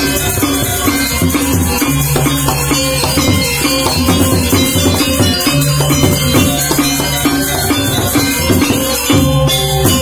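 Balinese gamelan gong ensemble playing: bronze metallophones struck in dense, fast patterns over held low notes, with hand drums.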